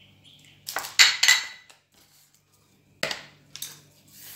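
Kitchenware being handled on a counter: a quick cluster of clinks and knocks about a second in, then after a short quiet gap a single sharp knock near three seconds and a lighter one after it.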